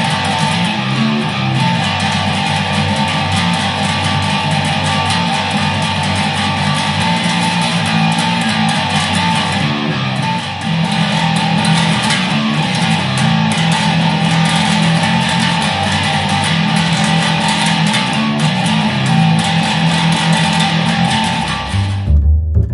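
Electric bass played through heavy distortion in a metal style: a thick, fuzzy riff of repeated low notes. About a second before the end the distorted sound cuts off, and clean low bass notes follow.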